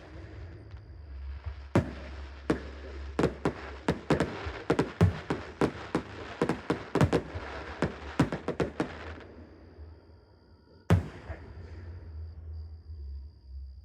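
Aerial fireworks going off in a rapid barrage of sharp bangs and crackles, which thins out and stops after about nine seconds. After a short lull, one single loud firework bang comes near the end.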